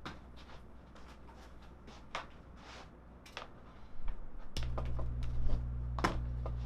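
Scattered clicks and knocks of equipment being handled, then about two-thirds of the way through a steady low electrical hum cuts in suddenly and holds: mains buzz in the audio feed, which the owner ties to the recorder's DC power adapter.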